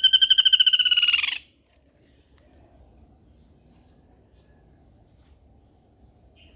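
A woodpecker's loud rattling call, a fast run of high pulsed notes that stops about a second and a half in. Then only faint background with a thin, high steady tone.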